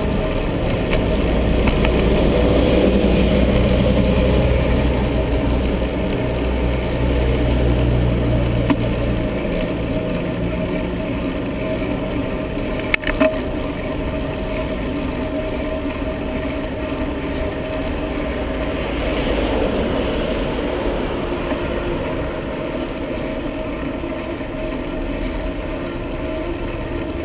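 Wind and road noise on a helmet-mounted GoPro HD Hero while riding a bicycle, with a motor vehicle's low engine hum for the first several seconds. A sharp double click about 13 seconds in.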